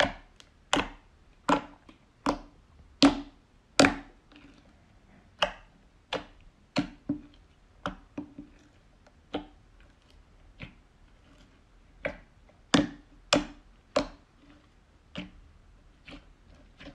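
Glossy slime being pressed and squeezed by hand, giving sharp, wet popping clicks, about twenty of them at uneven spacing, loudest in the first few seconds.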